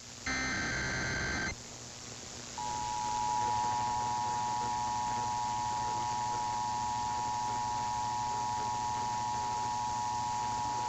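Emergency Alert System broadcast over static-laden radio. A roughly one-second burst of SAME digital header tones comes first. After a short gap, the EAS two-tone attention signal (853 and 960 Hz) holds steadily for about nine seconds. Together they open a Required Monthly Test.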